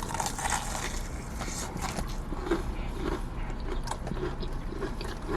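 A man biting into and chewing crunchy KFC fried chicken close to the microphone, with irregular crackling crunches of the crust.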